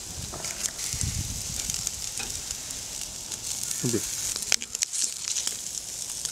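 Mutton ribs and chops sizzling on a wire grill over wood coals: a steady high hiss with scattered crackles and pops.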